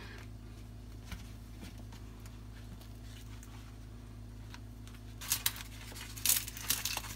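Banana leaf rustling and crinkling as it is folded by hand over a packed meal, with louder crisp crackles of the leaf in the last two seconds, over a steady low hum.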